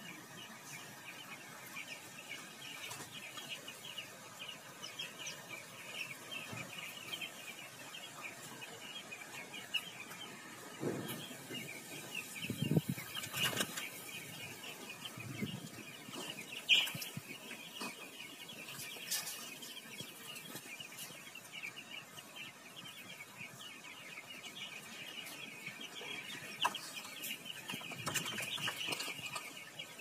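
A flock of young desi chicks peeping continuously, many high calls overlapping. There are a few thumps around the middle.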